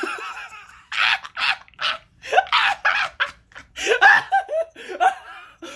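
Laughter in a string of short, breathy bursts starting about a second in.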